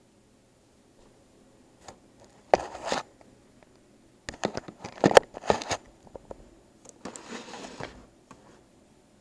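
Rustling and scraping in three bursts, with a few sharp clicks in the middle burst.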